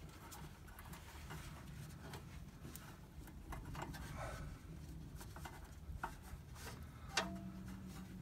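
Faint rubbing and scattered small clicks of hands handling the dry-rotted rubber fitting at the bottom of a skid steer's air cleaner housing, with one sharper click about seven seconds in.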